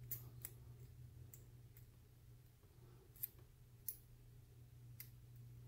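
Faint, scattered clicks of a lock pick working the pin stacks of a small solid-brass padlock under light tension, about seven in all, the two sharpest about three and four seconds in. A steady low hum runs underneath.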